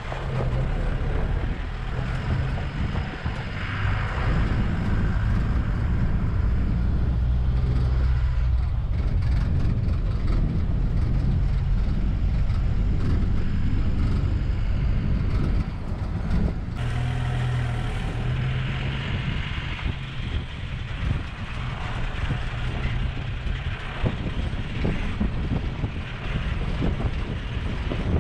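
Open-sided safari canter truck's engine running steadily as it drives along a bumpy dirt track, with road and body rattle noise; the engine note shifts about two-thirds of the way through.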